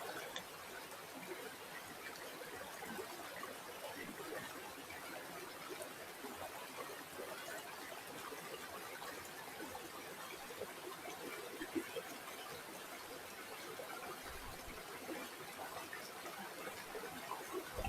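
Shallow water trickling and gurgling steadily over stones in a small stream, faint, with a few brief louder splashes.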